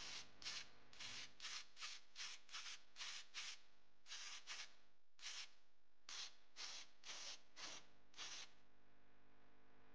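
Paint spraying in short bursts, a quick hiss roughly two or three times a second, as small model-car parts are coated; the bursts stop about a second and a half before the end.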